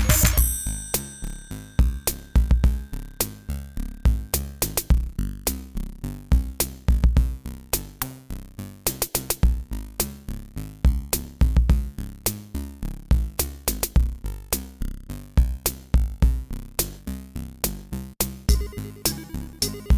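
Electronic background music with a drum-machine beat and synthesizer.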